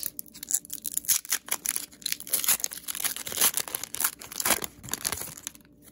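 Foil wrapper of a Pokémon Astral Radiance booster pack crinkling and tearing as it is ripped open by hand: a dense run of sharp crackles that thins out near the end.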